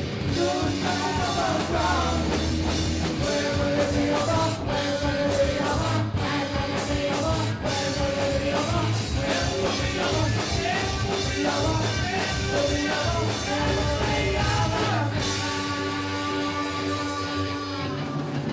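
Live rock band playing with sung vocals over a steady beat, ending on a long held chord for the last few seconds.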